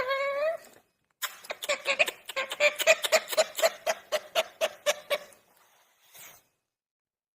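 Pet parrot calling: a held pitched note that ends about half a second in, then after a short pause a fast run of short repeated notes, about five a second, lasting some four seconds.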